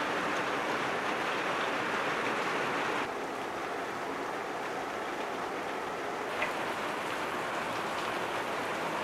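Steady rain falling, an even hiss without pauses that drops slightly in level about three seconds in.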